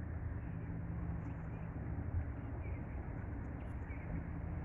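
Wind rumbling on the microphone over the wash of bay water, with a steady low hum that drops out and returns. A few faint, short bird chirps can be heard.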